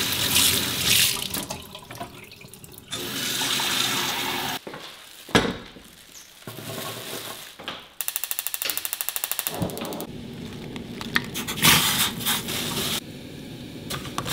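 Kitchen tap running into a steel sink as a saucepan is rinsed and filled, with about a second and a half of rapid, even clicking midway.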